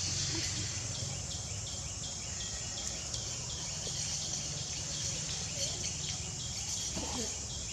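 Forest insects: a steady high buzz with a regular chirp repeating about three times a second, under a low rumble.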